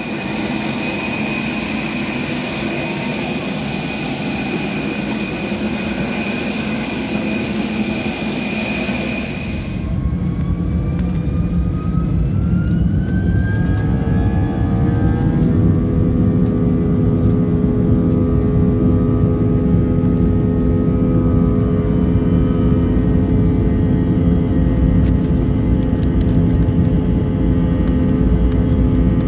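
Airliner jet engines: first a steady high-pitched whine on the apron. About a third of the way in the sound changes to the engines heard from inside the cabin, spooling up for take-off with several rising whining tones over a few seconds. They then settle into a loud steady drone over a deep rumble as the plane accelerates down the runway.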